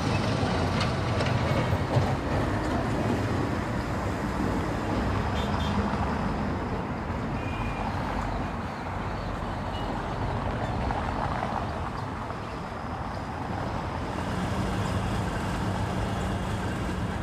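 Road traffic noise: a steady mix of vehicle engines running and passing, with a low engine hum over the last few seconds.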